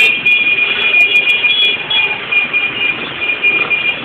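Shrill, high-pitched tooting, several at once, sounding on and off over street and traffic noise, dying away near the end.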